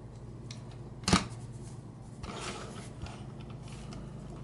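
Plastic Transformers toy car handled and turned over in the hands: one sharp knock about a second in, then soft rubbing and scraping of plastic with a few small clicks.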